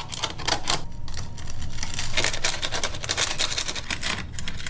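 Papery wasp-nest envelope crackling and tearing as it is pulled and cut apart: a dense run of crisp dry clicks.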